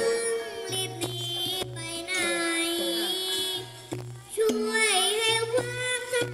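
A young girl singing into a microphone over amplified backing music with a regular low bass pulse; her sung notes are held with a wavering vibrato.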